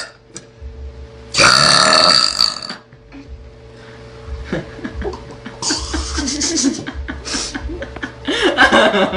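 A teenage girl lets out one long, loud burp about a second and a half in, lasting over a second, followed by quieter sounds.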